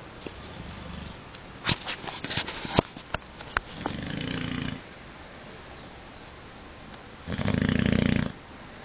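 A sleeping dog snoring: two long snores about three seconds apart, the second one louder. A few sharp clicks come just before the first snore.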